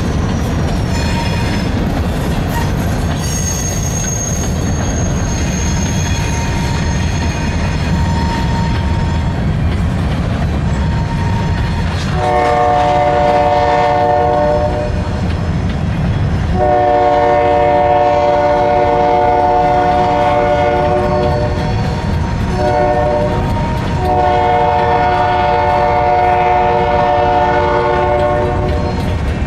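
Freight locomotive air horn sounding the grade-crossing signal, starting about twelve seconds in: two long blasts, a short one and a final long one, over the steady rumble of the moving train. Earlier a thin high squeal is heard over the rumble.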